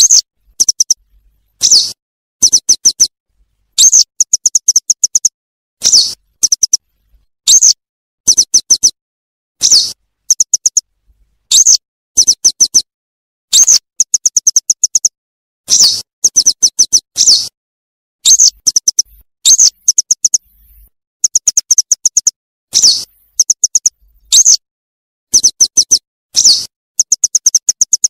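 Recorded yellow wagtail calls played in a loop as a hunting lure. Each round is a high, slurred call followed by a quick run of short chirps, repeating about every two seconds.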